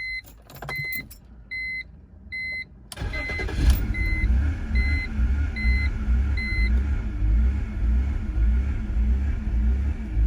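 A warning chime beeps about once a second along with a few clicks. About three seconds in, the 2003 BMW 325i's 2.5-litre inline-six starts and settles into a rough idle with an uneven, surging throb. This is the stalling and rough-idle fault that a cleaned idle control valve, new fuel pump, fuel filter, cam sensors and crank sensor have not cured.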